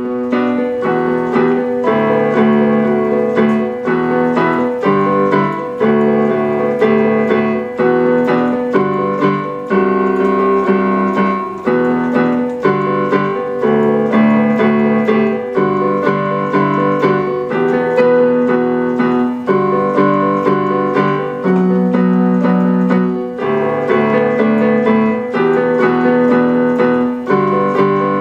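Electronic keyboard music with an electric-piano sound: sustained chords changing about once a second over quick repeated notes, starting abruptly.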